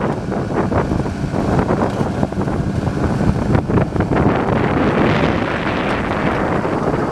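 Cat D5M XL crawler dozer pushing dirt under load: its diesel engine running steadily while the steel tracks clatter and rocks and soil grind ahead of the blade, with wind on the microphone.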